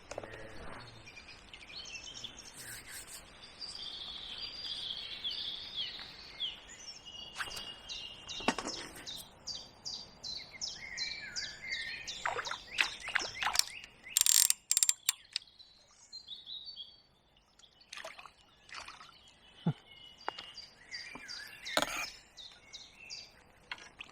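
Small birds singing and chirping in short high notes, over a faint steady background hiss in the first half. Sharp knocks and clicks come in the second half, the loudest a short cluster about halfway through.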